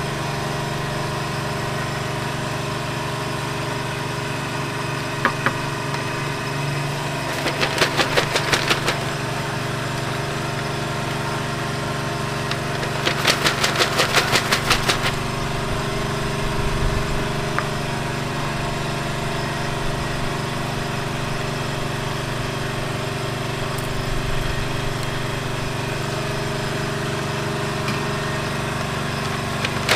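A small engine, most likely the stall's generator, running at a steady idle. Two short runs of rapid, even ticking come over it, about a third of the way in and again near the middle.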